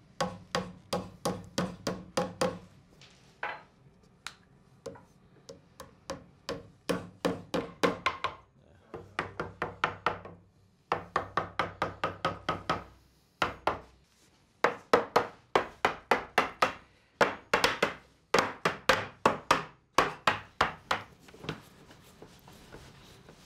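Claw hammers tapping floating tenons and a red oak face strip into place along a plywood edge: quick runs of sharp knocks on wood, several a second, with short pauses between runs. The knocks thin out and soften near the end.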